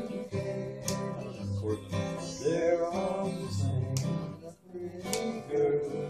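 Acoustic guitar strumming chords over bass notes.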